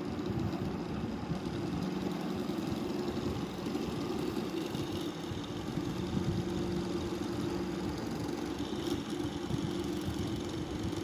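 Homemade axial-flux BLDC motor running on one of its two stators, driven by a small BLDC controller board: a steady electrical-mechanical hum with two held low tones. A faint higher whine joins near the end.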